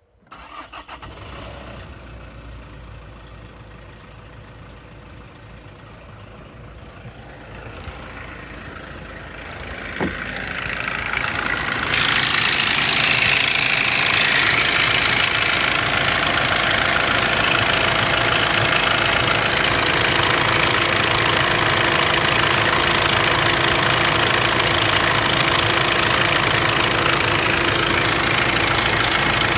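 Kia Sorento 2.5L CRDi D4CB diesel engine starting and idling with a rattle, which the owner suspects is a bad timing chain. It comes in suddenly at the start, and about twelve seconds in the running becomes much louder and stays steady.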